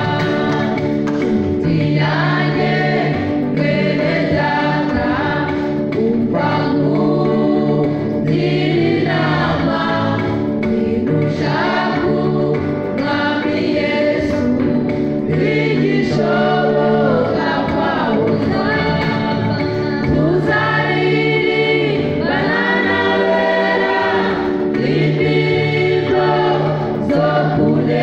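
Church choir singing a gospel song together over an electric keyboard accompaniment, played through a PA system.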